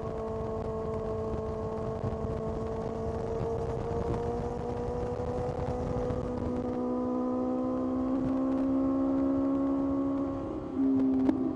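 Kawasaki ZX-6R's 636 cc inline-four engine running under steady throttle, its note rising slowly as the revs climb. Near the end the sound dips briefly and the engine settles at a lower pitch.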